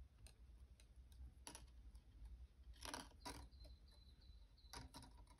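Near silence with a few faint, scattered clicks and ticks of copper wire being threaded through and pulled around the coiled loops of a wire-wrapped cuff bracelet.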